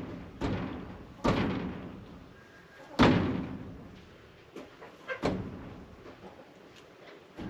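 Four irregularly spaced sharp knocks on the wooden post frame, the loudest about three seconds in, each dying away briefly.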